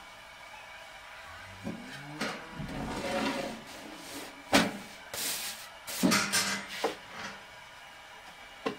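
A series of knocks and clatters of objects being handled, like a cupboard or drawer banging. The sharpest knock comes about halfway through, followed by a short scraping rush and a few more knocks.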